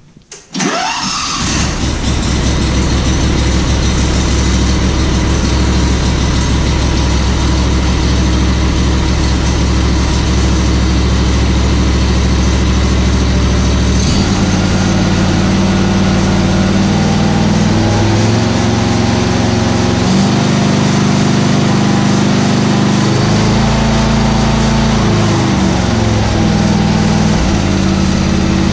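Briggs & Stratton Vanguard 28 hp EFI V-twin engine on a Ferris Z2 stander mower starting after a brief crank about half a second in, then running steadily, its note shifting in steps in the second half. It is being run on freshly changed oil before the level is rechecked.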